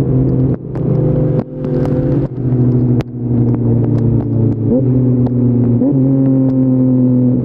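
Yamaha MT-09's 890 cc three-cylinder engine running through an Akrapovic full-system exhaust while riding. Its note dips and builds again several times in the first three seconds, then runs steady from about six seconds in.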